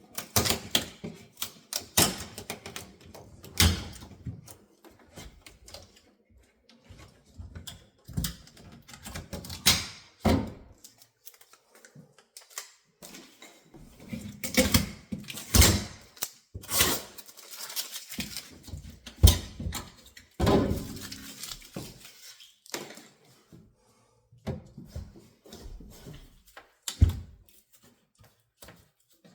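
Handling noises from unpacking a new refrigerator: irregular knocks, clicks and thuds with rustling and scraping in between, as packaging and the fridge's plastic parts are moved about.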